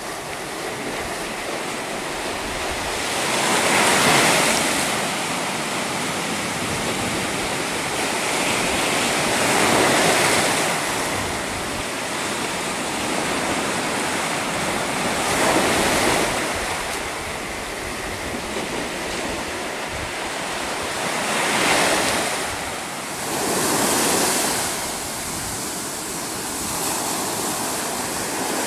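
Sea surf breaking on a sandy shore and rocks: a steady wash of water that swells into a louder crash about every six seconds.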